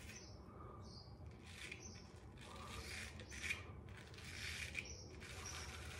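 Full hollow ground Japanese straight razor scraping through lather and stubble in a series of short strokes.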